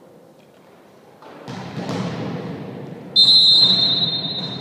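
A referee's whistle blown in one long, shrill blast starting about three seconds in, signalling the serve. Before it, echoing voices and noise rise in the sports hall about a second and a half in.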